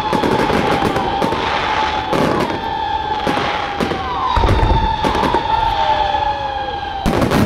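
Fireworks display: repeated bangs and crackling over a steady high whistle, with a shorter whistle gliding down about five seconds in. A deep thump comes about four and a half seconds in, and near the end the whistle cuts off as a quick run of bangs starts.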